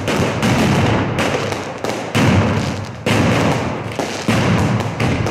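Fireworks going off in a dense run of sharp bangs, several a second, over a continuous crackling rumble, with a louder bang about once a second.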